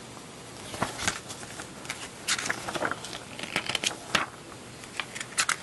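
Pages of a plastic model kit's paper instruction manual being flipped through by hand: an irregular run of quick paper flicks and rustles, starting about a second in.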